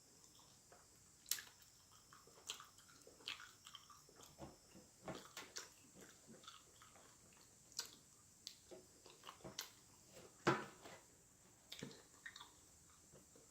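A person chewing and biting food close to the microphone: irregular mouth clicks and smacks, the strongest about two-thirds of the way through.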